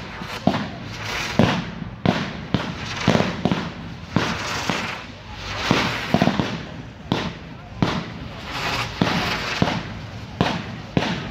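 Low-noise display fireworks firing in quick succession: a sharp pop every half second to second as effects burst, between swells of hiss from rising comets and fountains.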